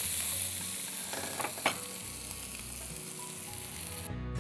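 Fish shallow-frying in hot oil in a pan, a steady sizzle, with a few sharp clicks of a utensil against the pan about a second and a half in as the pieces are lifted out. Background music comes in near the end.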